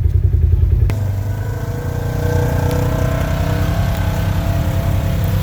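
Polaris RZR side-by-side engine with a low pulsing throb at first. After a click about a second in, it runs on as a steadier drone with a slightly wavering pitch.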